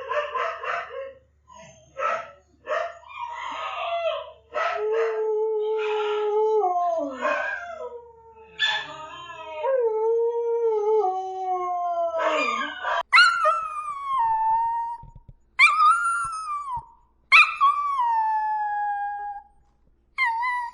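Dogs howling: long, drawn-out howls gliding up and down and sagging in pitch, sometimes two voices at once. About 13 seconds in, it changes to shorter, higher howls, four in all, each starting high and falling.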